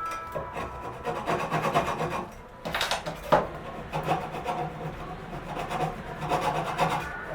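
Wood being worked by hand with an abrasive tool, in repeated rasping strokes, with one sharp knock about three seconds in.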